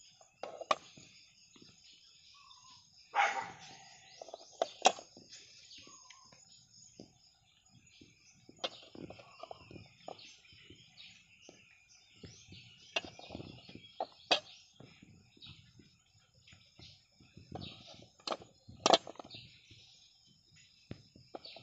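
Duck eggs being picked up by hand and set into a metal basin, clicking and knocking against the rim and each other at irregular intervals, with dry straw rustling between the knocks.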